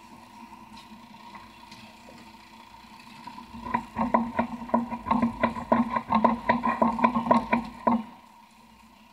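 Steady drone on a charter fishing boat, typical of its engine running. About four seconds in, it turns into a loud, rapid pulsing of roughly four beats a second. The pulsing lasts about four seconds and then drops away.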